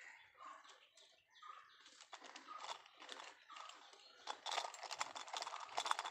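Leaves and stems of dense undergrowth rustling and crackling as someone pushes through them, getting louder from about two seconds in.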